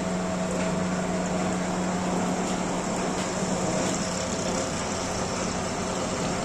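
M1TR milling machine running, a steady mechanical hum with a constant low tone.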